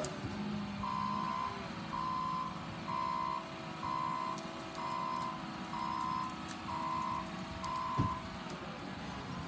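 Wheel loader's backup alarm beeping eight times, about once a second, over the steady running of its diesel engine as it reverses. A single sharp knock comes near the end.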